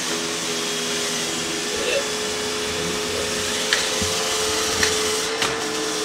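iRobot Roomba i7+ robot vacuum running on a tile floor: a steady whirring hiss over a constant hum, with three light clicks in the second half.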